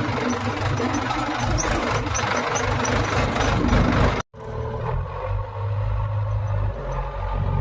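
A diesel engine of a backhoe or farm tractor running steadily. The sound cuts out abruptly for a moment just past four seconds in, then the engine goes on.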